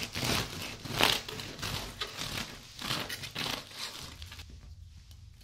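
Serrated bread knife sawing through the crisp, floured crust of a large round loaf of bread (a miche), the crust crackling and splintering in several sawing strokes. The crackling dies away about four and a half seconds in as the slice comes free.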